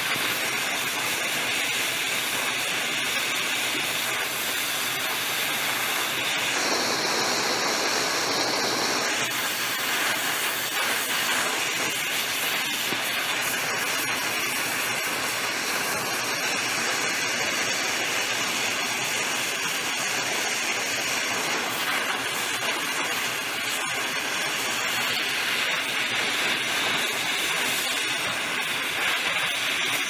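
Gas brazing torch flame hissing steadily as it heats a copper tubing coil. The tone shifts for a couple of seconds about seven seconds in.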